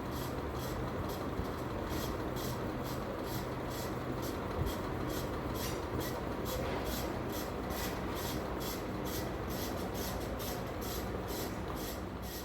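Tron Eco Rio ceiling fan running steadily with a low hum. A rhythmic rubbing scrape repeats a few times a second.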